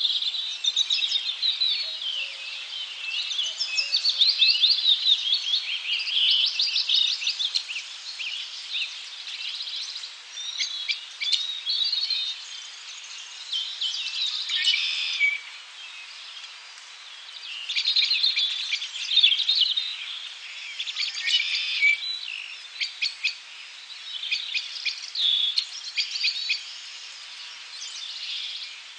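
Several small birds chirping and singing over one another: quick repeated chirps and trills that come in louder bursts, with short lulls between.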